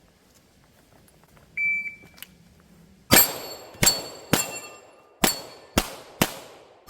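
A shot timer beeps once briefly, then about a second and a half later seven gunshots ring out over about four seconds at a quick, uneven pace. The shots are followed by the ringing of steel plates on a Texas Star target.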